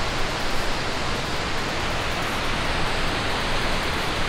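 Steady rush of a fast-flowing mountain river, an even roar of white water.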